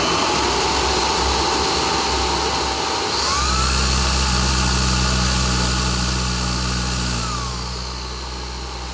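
Numatic Hetty Quick cordless vacuum motor running with the hose sealed off against a suction gauge: a steady whine on its normal setting that steps up in pitch and gets fuller about three seconds in as boost is selected, then drops back somewhat near the end.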